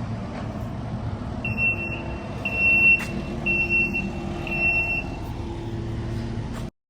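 A vehicle's reversing beeper sounds four high beeps, about a second apart, over a low engine rumble.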